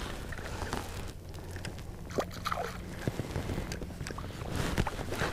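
Water sloshing and lapping around a float tube, with a few scattered faint ticks and small splashes from a hooked bass being fought near the surface.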